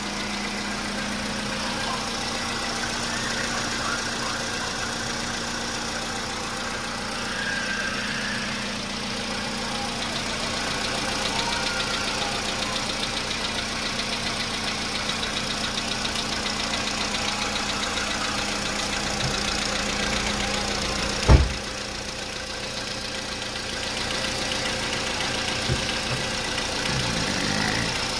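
Skoda Rapid's 1.6 CFNA four-cylinder petrol engine running steadily with a knock, which the owner says is still there. One sharp, loud thump about three quarters of the way through.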